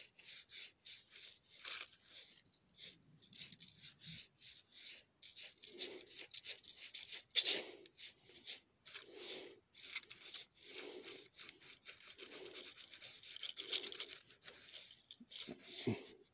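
Handling noise from a phone microphone rubbing and scraping against skin and a cotton shirt collar: a dense run of scratchy rustles, with soft low thumps about every second and a half in the second half.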